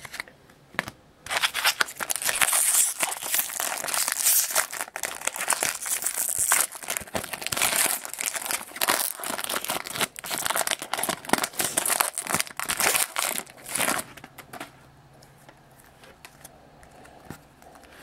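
Foil wrapper of a Topps baseball card jumbo pack being torn open and crumpled by hand, a dense crinkling rustle starting about a second in and dying away a few seconds before the end.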